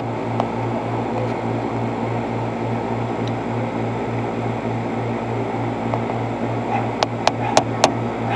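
Steady mechanical hum with a low throb pulsing about three to four times a second. Near the end come four quick, sharp knocks, knuckles rapping on a house window.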